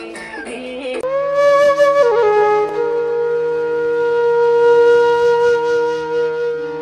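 Music: a song with a sung line breaks off suddenly about a second in, and a flute takes over, playing a short phrase and then one long held note over a steady low drone.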